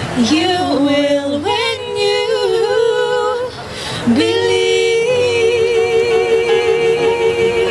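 Two female voices singing a pop ballad duet in harmony over upright piano accompaniment. Short moving vocal phrases in the first few seconds give way, about four seconds in, to a long held note sung together with vibrato.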